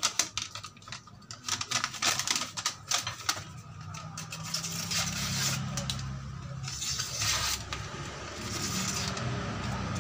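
Paper crinkling and tearing as a thin steel blade made from an old hand saw is slashed through a sheet, a run of sharp crackles and clicks. Then, after about three and a half seconds, the blade is honed with a long file drawn along its edge, a rasping metal scrape in slow strokes about a second apart, over a low steady hum.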